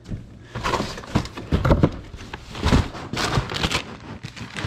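Boxed toys and cardboard packaging being shifted and pulled out of a bulk bin: irregular rustling and scraping, with two dull thumps about one and a half and two and a half seconds in.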